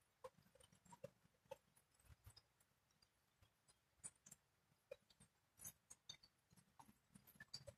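Near silence: quiet outdoor background with faint, scattered small ticks and chirps.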